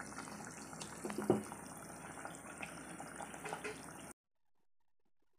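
Okra-and-meat curry (bhindi gosht) simmering in an aluminium pot: a steady bubbling hiss with small pops as the gravy boils so the meat and okra soften. It cuts off suddenly a little after four seconds.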